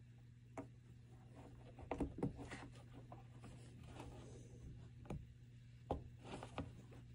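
Faint handling noises of hands fitting a rubber fuel hose and in-line filter onto a plastic tank fitting: light rubs and a few soft knocks, the loudest pair about two seconds in and another near six seconds, over a low steady hum.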